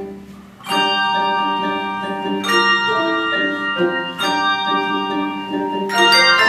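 Handbell choir ringing. The previous chord fades almost to a pause, then full chords are struck about every two seconds, each ringing on as bright, sustained bell tones.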